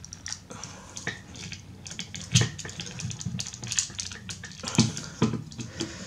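Plastic parts of a Transformers Masterpiece MP-17 Prowl figure clicking, scraping and rubbing as hands work its joints and body panels. There are a few louder handling sounds a little after two seconds and again near five seconds.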